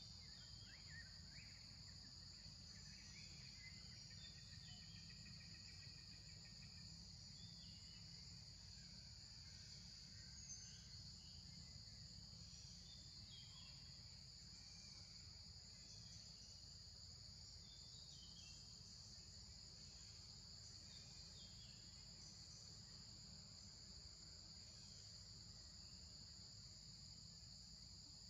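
Faint steady high-pitched drone of an insect chorus over a low steady rumble, with a few faint short chirps scattered through it.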